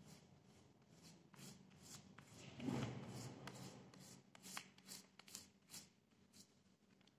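Faint fingertips rubbing and scratching across the back of a sheet of paper, pressing it onto an inked plate to transfer the print by hand: a run of short dry scrapes, with a louder rustle of the paper about two and a half seconds in.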